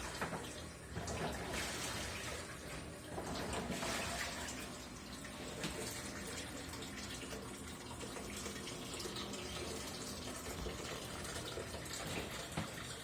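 Hitachi BeatWash BT7-TV top-loading washing machine running: water rushing and sloshing in the tub over a steady low hum, louder in swells during the first few seconds. The owner is unsure whether this is normal or a sign of a failing clutch.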